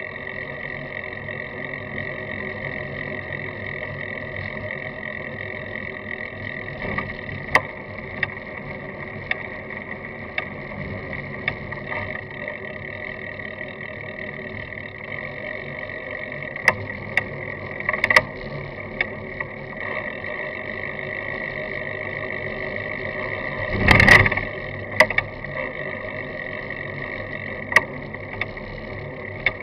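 Road bicycle rolling along a sealed road, heard through a camera mounted on its frame: a steady whirr of tyre and road noise with a high tone in it, sharp rattling clicks as the frame takes small bumps, and one heavy knock about four-fifths of the way through.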